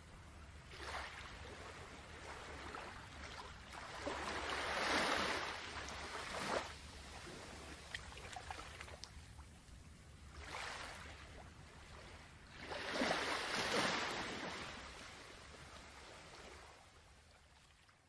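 Ocean waves washing in and drawing back in slow swells, with two bigger surges about eight seconds apart over a low steady rumble; the sound fades out near the end.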